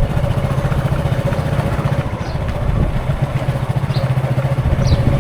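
Road traffic with a vehicle engine running steadily close by, and a few short high chirps over it.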